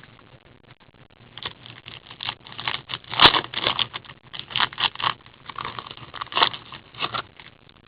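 Trading-card packaging being opened and handled: a run of irregular crinkling, tearing and scraping of wrapper and cardboard, with a sharper crackle about three seconds in.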